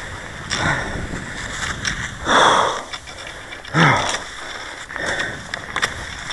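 Cross-country skier's hard, rhythmic breathing: four strong exhalations about a second and a half apart, in time with the stride. Under it a steady hiss of skis gliding in the classic tracks, with a few sharp clicks.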